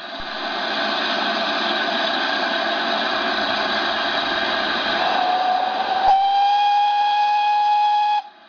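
Steam whistle of GWR 5205-class 2-8-0 tank locomotive 5239 "Goliath" sounding one long departure blast. It starts breathy and full of steam hiss, firms into a clear, steady tone about six seconds in, and cuts off sharply near the end.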